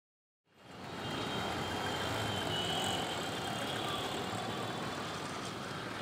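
City street ambience fading in about half a second in: a steady hum of road traffic and vehicle engines.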